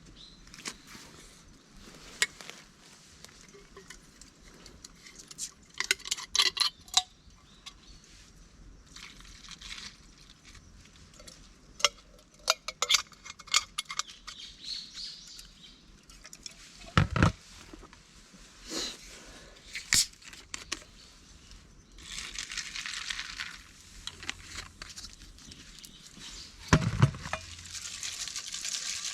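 Camp cookware and gear being handled: scattered clinks, clicks and knocks, with a couple of heavier thuds. Two stretches of steady hiss come in a little over two-thirds of the way through and again near the end.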